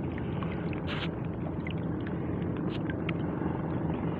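A steady low motor hum with small water and handling noises. A short splashy hiss comes about a second in, and a few light clicks come near the end.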